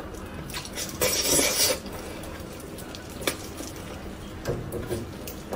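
Close-up eating sounds: a mouth biting and chewing soft, collagen-rich braised pork off the bone. There is a louder noisy burst lasting under a second about a second in, a sharp click a little after three seconds, and softer wet noises near the end.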